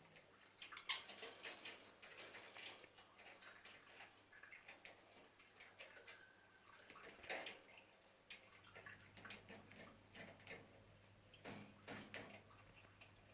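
Budgerigars chattering softly: faint short chirps and many light clicks and scratches, irregular throughout.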